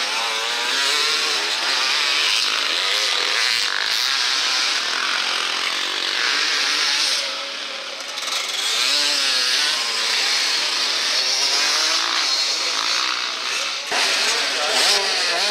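Motocross dirt bike engines revving, their pitch rising and falling with the throttle, with a brief drop in level about halfway through.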